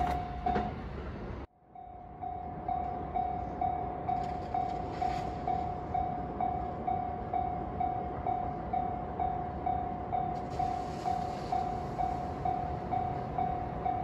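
Railway level crossing warning bell ringing in an even repeating ding of one tone, about two strikes a second, signalling that a train is coming. The sound drops out abruptly about a second and a half in and resumes half a second later.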